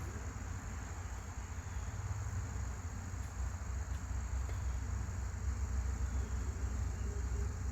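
A steady low rumble with a constant high-pitched insect trill over it.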